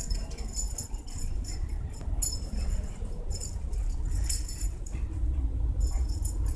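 Light metal jingling in short, irregular bursts, over a steady low rumble of wind on the microphone.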